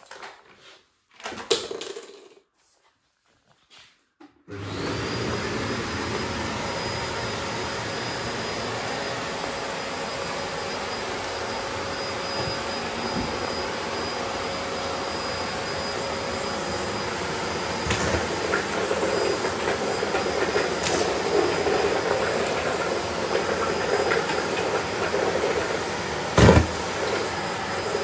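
Bosch BGS21X320 bagless canister vacuum cleaner starting up about four seconds in, after a few light handling knocks, then running steadily with a faint high whistle. A few sharp clicks and one loud knock come near the end.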